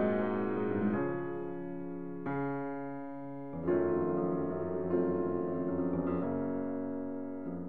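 Background piano music: slow chords, a new one struck about every one and a quarter seconds and left to fade.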